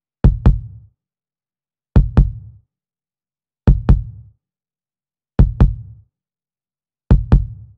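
Heartbeat-like double bass-drum beat in the score: pairs of low thumps about a quarter second apart, repeating five times about every 1.7 seconds, each pair dying away quickly into silence.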